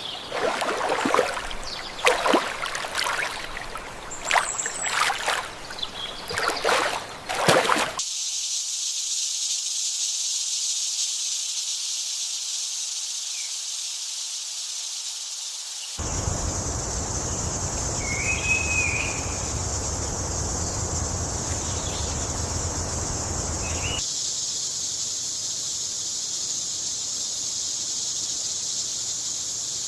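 A deer giving a run of short, loud calls for the first several seconds. A steady high-pitched hiss of outdoor ambience follows, with one brief bird chirp partway through.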